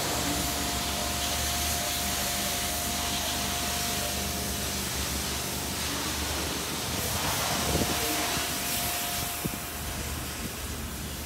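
Mazda MX-5 roadster idling, a low steady hum under a constant hiss of wind on the microphone. A single sharp click comes about nine and a half seconds in.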